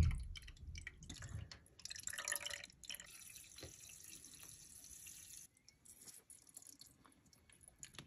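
Faint dripping and trickling of coolant squeezed from a plastic wash bottle into a water-cooled PC's clear pump-reservoir, with a few light clicks.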